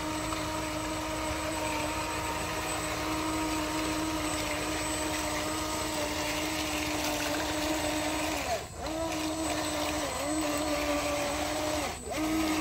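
Electric motor and gearbox of a radio-controlled toy construction vehicle whining steadily at one pitch, the whine sagging and dipping briefly twice in the last few seconds.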